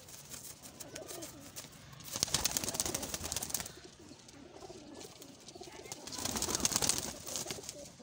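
Domestic pigeons cooing softly, with two louder rustling bursts of noise, one about two seconds in and one about six seconds in, each lasting a second or more.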